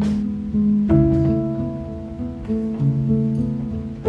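Background music: gentle plucked acoustic guitar playing a slow melody of held notes.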